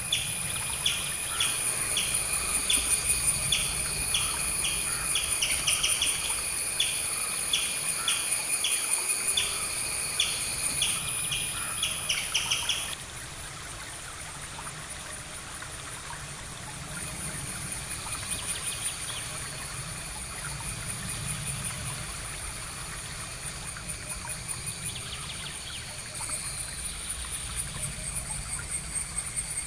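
Outdoor nature ambience: a steady high insect drone, with a rapid series of evenly repeated chirps that stops about thirteen seconds in, after which softer, sparser chirping continues.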